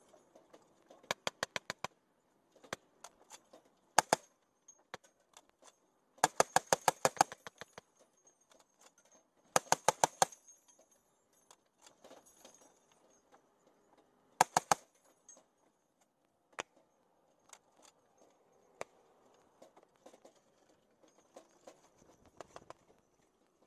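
Turret-mounted heavy machine gun on a Humvee firing short bursts of about nine rounds a second: a run of about six, a couple of single shots, a longer burst of about a dozen, then bursts of about seven and four, with pauses between. The bursts are short and halting, which the gunner puts down to a dodgy ammo can.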